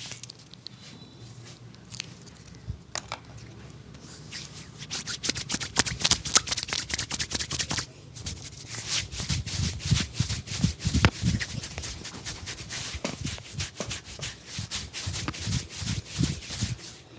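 Hands massaging bare skin: a fast run of slaps, pats and rubs that starts about four seconds in, pauses briefly near eight seconds, then carries on.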